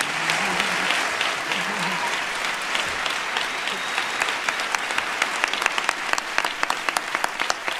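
Audience applause, a dense wash of clapping that thins from about halfway, when single sharp claps close to the microphone stand out.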